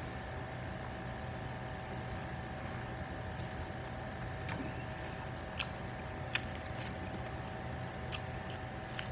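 Steady background hum with a few short, sharp mouth clicks and smacks from closed-mouth chewing of pizza, about halfway through and again near the end.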